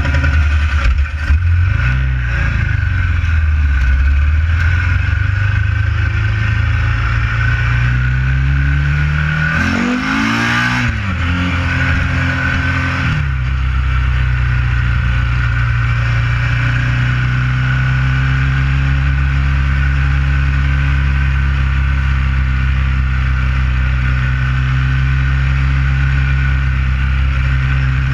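Ducati 900 SS air-cooled L-twin engine pulling away from a stop, its revs rising and falling in the first few seconds. The revs climb sharply about ten seconds in and drop away at about thirteen seconds, then the engine holds a steady note while cruising.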